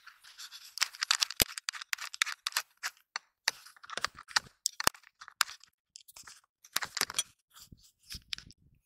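Handling noise on the camera's microphone as it is taken off the rangefinder eyepiece: irregular scraping and rustling with a scatter of sharp clicks.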